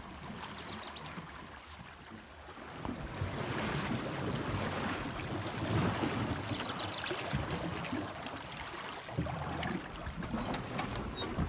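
River current rushing and splashing past a beaver dam, growing louder about three seconds in.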